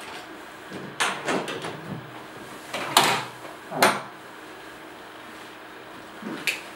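The hard plastic lid of a CB-500T currency box being unlatched and swung open: metal hasps clattering about a second in, then two loud plastic knocks as the lid lifts and comes to rest, and a faint click near the end.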